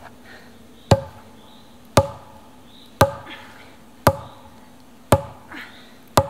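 Wooden stake being pounded into the ground with overhead blows of a wooden pole: six sharp knocks about a second apart, each with a short ring.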